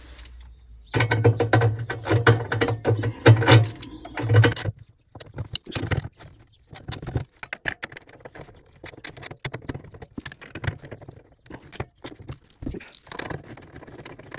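Socket ratchet clicking rapidly for a few seconds as the 8mm bolts holding an air suspension compressor tray are undone, followed by scattered light metallic clicks and taps of the tool and bolts.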